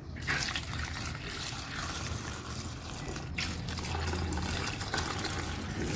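Water pouring in a thin stream into a stainless-steel bowl of small brinjals, filling it with a steady splashing that begins about a quarter of a second in.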